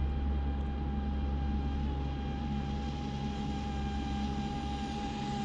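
Electric RC speedboat running flat out at full throttle, its motor giving a steady high whine.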